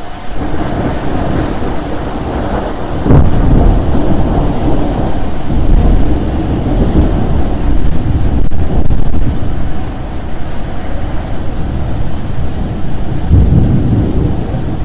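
Heavy rain falling steadily, with deep rolling rumbles of thunder. A loud rumble comes in about three seconds in and rolls on for several seconds, and another swells up near the end.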